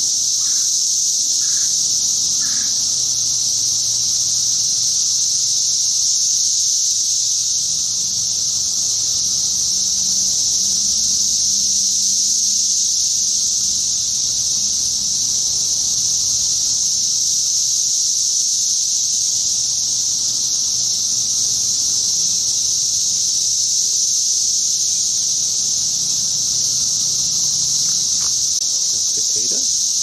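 Loud chorus of Brood X periodical cicadas: a steady, high-pitched drone without a break.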